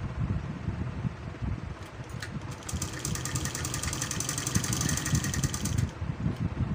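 Sewing machine stitching a seam: a rapid, even run of needle strokes starting about two and a half seconds in and stopping about three seconds later, over a steady low rumble.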